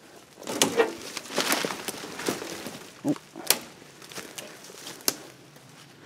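Footsteps through forest brush: twigs snapping and crackling underfoot and branches brushing past, in an irregular run of snaps. The sharpest snaps come about three and a half and five seconds in, and it quiets near the end.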